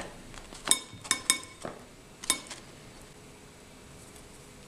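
A spoon clinking against a ceramic soup plate four times within the first couple of seconds, each knock ringing briefly.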